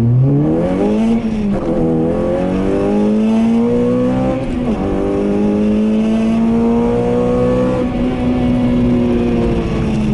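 Honda Civic Type R's 2.0-litre four-cylinder i-VTEC engine, with aftermarket intake and exhaust, heard from inside the cabin accelerating hard. Revs climb and drop sharply twice at gear changes, about a second in and again about four and a half seconds in, then build slowly in the higher gear and ease off near the end.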